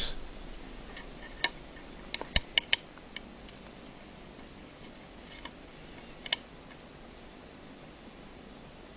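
Small sharp clicks of a small screwdriver working the tiny screws that hold an iPhone 5's vibrating motor: a quick run of four about two and a half seconds in, with a few single clicks before and after.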